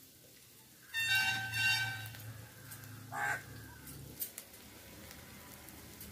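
Crow cawing: a harsh call about a second in, and a shorter one around three seconds in, with a few faint clicks afterwards.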